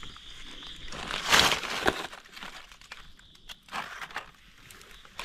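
Dry fallen leaves rustling and crackling in a few short bursts, the loudest just over a second in. Behind it a steady high-pitched tone runs and cuts off about three and a half seconds in.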